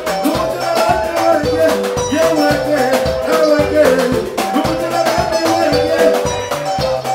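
Soukous band music with a steady drum beat, bass notes, shakers and repeating melodic lines.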